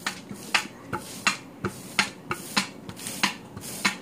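Rolling pin with wooden handles being rolled back and forth over ground meat on parchment paper: a quick, uneven run of short clicks and knocks, about three a second, over a rubbing sound.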